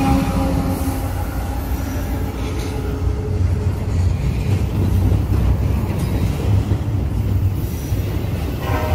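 Double-stack intermodal freight train rolling past close by: a steady rumble of steel wheels on rail as the well cars go by, with a brief squeal of wheels starting near the end.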